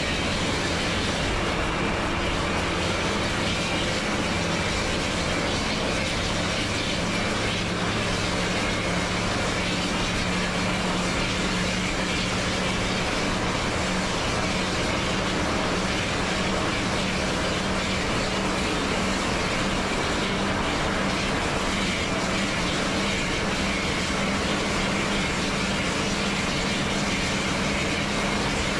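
Steady engine drone and road noise heard inside a coach bus cruising on a highway, with a steady low hum that grows a little stronger about eight seconds in. The exhaust of a bus running just ahead is loud enough to bother passengers.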